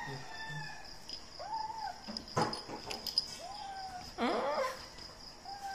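A young kitten gives several short, arching mews in protest while it clings to a feeding-bottle nipple and will not let go. The loudest mew, about four seconds in, drops in pitch with a rough, growly edge. A couple of sharp clicks come about halfway through.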